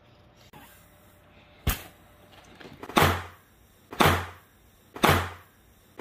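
A hand slapping a crumpled plastic-paste toy balloon film down on a wooden table. One sharp knock comes first, then four loud slaps about a second apart, each with a brief crackle of the plastic.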